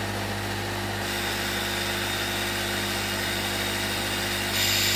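Air compressor humming steadily while air bubbles out through a Jepond foamed-rubber aeration hose submerged in a tank of water. The hiss of air and bubbling steps up about a second in and again, louder, near the end, as the bypass valve is closed further and more air is forced through the hose.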